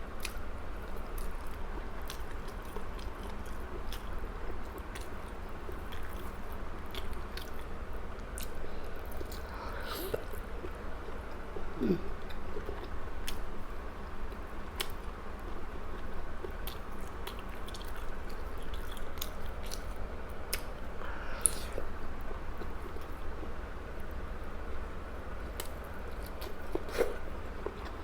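A person chewing and biting tender grilled chicken close to the microphone, with many small wet mouth clicks and smacks.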